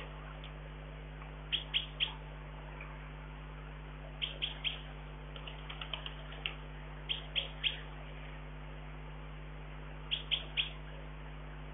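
A small songbird chirping in short, sharp calls, mostly in quick groups of three repeated every few seconds, with one faster run of chirps about halfway through. A steady low hum runs underneath.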